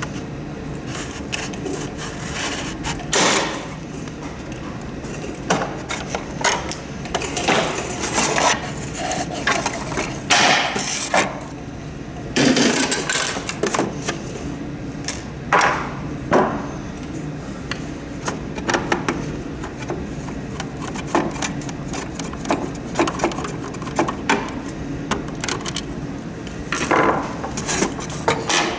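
Hand tools working on a humidifier's plastic housing during disassembly: irregular clicks, knocks and scraping, with a few louder cracks and clunks.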